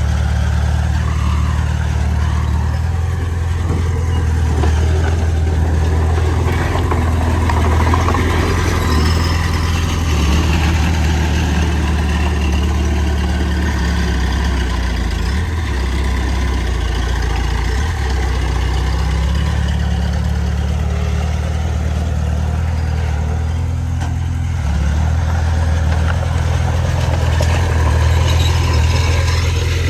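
Bulldozer's heavy diesel engine running steadily at work, its low note shifting a few times as the load changes.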